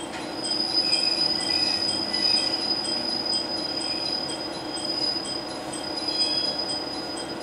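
Diesel railcar's brakes squealing in one steady high-pitched tone as it slows into a station, over the low drone of the running train. A faint tick repeats about twice a second.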